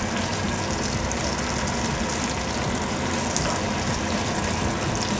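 Beef pieces sizzling steadily on an electric grill plate, over a constant low mechanical hum.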